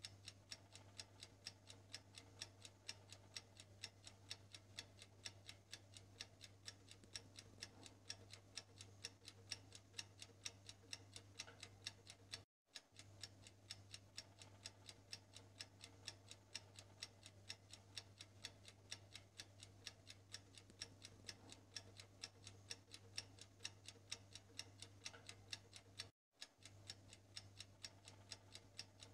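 Faint ticking of a countdown-timer sound effect: an even run of quick clock ticks over a low steady hum, cutting out for a moment twice.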